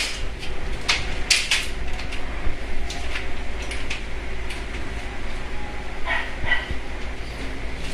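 Scattered light clicks and rattles of an aluminum sliding-door track and its roller fittings being handled, over a steady low hum.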